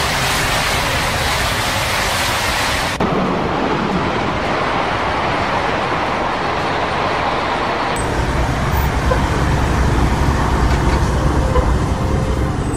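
High-speed electric trains passing at speed: a steady rush of air and wheel-on-rail noise. It cuts abruptly to a different pass-by about three seconds in and again about eight seconds in, the last one with a deeper rumble.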